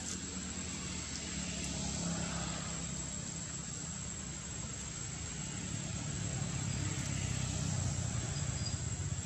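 Outdoor ambience: a steady, high-pitched insect drone held on one note over a low, even rumble like distant traffic, a little louder near the end.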